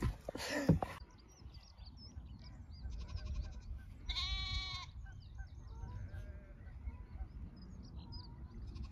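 Sheep bleating across open fields: one loud bleat about four seconds in, then fainter bleats, over small bird chirps and a low wind rumble. A short knock and burst of noise in the first second.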